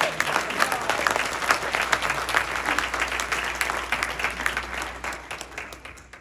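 Audience applauding, a dense patter of many clapping hands that thins out and fades near the end.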